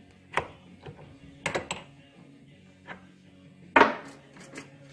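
Metal clicks and clanks from an Eastwood hand-operated brake line flaring tool, clamped in a vise, as its clamp and lever are worked to release the freshly flared steel tube: a few sharp clicks, then a louder clank near the end.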